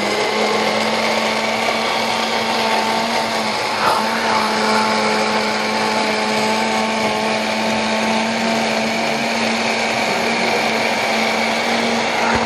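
Electric blender motor running steadily, grinding browned onions with hot water into a paste. There is a brief hitch with a knock about four seconds in.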